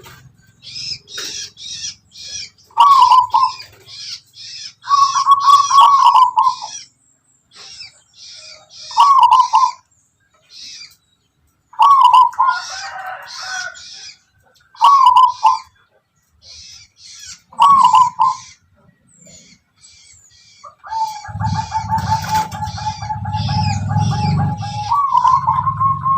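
Zebra dove (perkutut) singing, repeating short cooing phrases every few seconds against a background of quick, high chirps. In the last few seconds a steady tone sounds over a low rumble, then steps up in pitch near the end.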